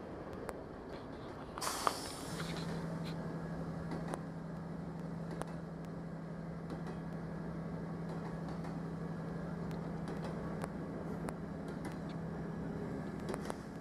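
Steady low hum of a standing diesel passenger train idling, with a short hiss of released air about two seconds in, just before the hum steps up.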